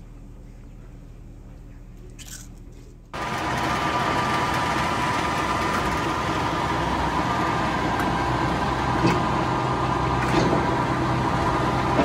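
Cows munching feed for about three seconds. Then a sudden change to the much louder, steady running of a feed mixer wagon, its augers turning through silage.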